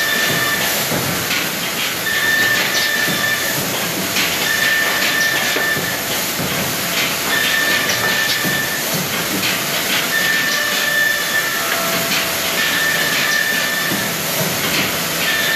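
Woodworking panel machine running in a board factory: a steady loud hiss, with a short high tone and a few clicks repeating about every two and a half seconds as boards are fed through.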